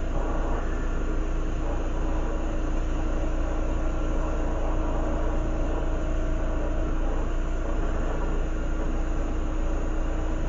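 Glassworking torch flame hissing steadily as it heats the glass, over a constant low hum.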